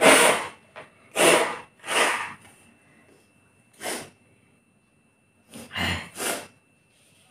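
A person sneezing over and over in short, loud bursts. Three come in the first two seconds, one follows near the middle, and a quick run of three comes near the end.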